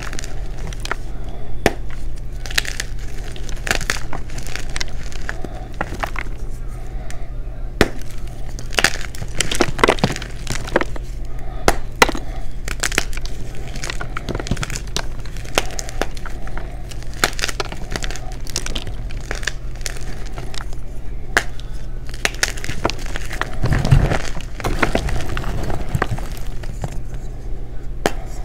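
Blocks of gym chalk being crushed and crumbled by hand: irregular sharp cracks and crunches with soft crumbling between them. A steady low hum runs underneath.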